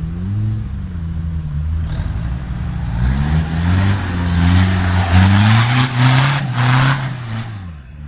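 Toyota 4x4's engine revving up and down under load, driven off-road through deep mud. A thin rising whine comes about two seconds in, and a loud rushing of spinning tyres and churned mud runs through the middle before the revs drop near the end.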